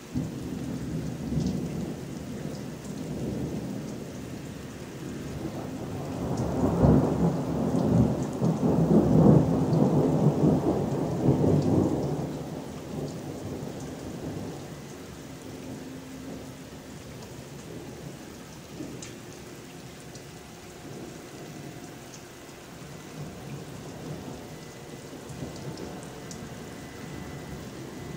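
Thunder rumbling over steady rain. A first rumble comes right at the start, then a louder, longer peal swells from about six seconds in and dies away by about fourteen seconds, leaving the steady rain.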